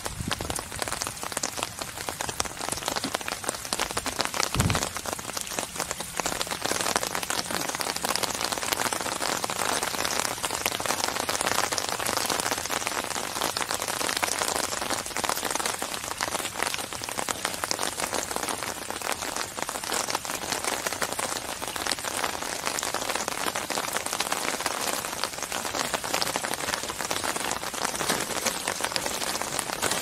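Steady rain falling onto the open water of a lake: a dense, even hiss made of countless small drop splashes. One low thud stands out about four and a half seconds in.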